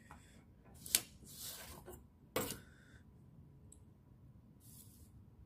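A ruler and a pair of compasses being handled on drawing paper: a sharp click about a second in, a brief soft scrape, then a knock a little after two seconds.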